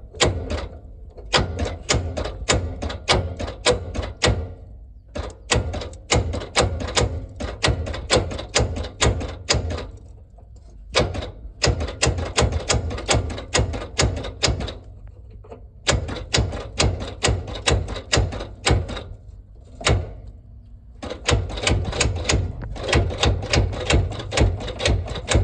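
Starter on a Ford 4500 industrial loader tractor's seized gasoline engine engaging in five spells of a few seconds each, clattering with several sharp clicks a second: the engine is locked up and the starter can barely move it.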